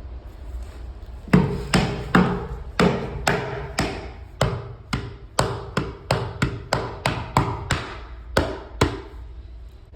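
Hammer blows in a run of about twenty sharp strikes, some close together, each leaving a short ring, starting about a second in and stopping near the end.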